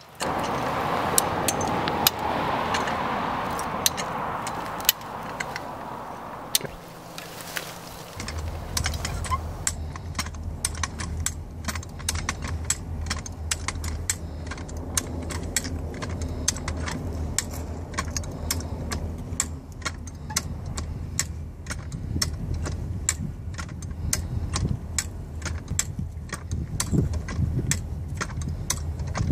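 A Hi-Lift style farm jack clicking and clacking as its handle is worked to lift a heavy timber beam, with its chain rattling. A steady rushing noise fills the first several seconds, and from about eight seconds in an engine runs steadily underneath the clicks.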